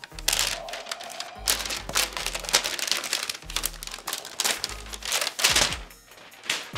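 Background music with a steady bass line, over the crinkle and rustle of paper packaging and a cardboard box as a laptop is lifted out of it.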